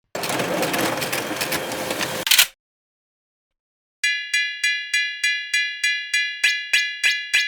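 A rush of noise with rapid clatter, like a train passing, lasts about two and a half seconds and cuts off. After a short silence, a Japanese railroad crossing warning bell starts its 'kan kan' ringing, bright and quick at about three strikes a second.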